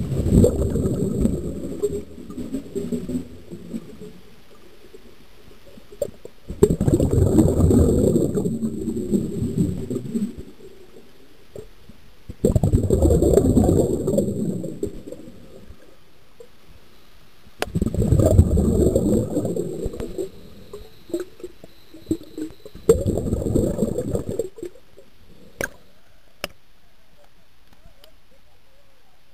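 Heard through an underwater camera housing, a rumble and gurgle of bubbles and moving water comes in five bursts of a few seconds each, about every five seconds. Near the end it goes quieter, with a few sharp clicks.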